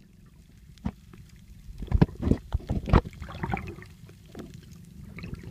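Muffled water sounds heard through a submerged phone microphone: splashing and bubbling, with sharp knocks of water against the phone, most of them about two to three seconds in, over a low rumble.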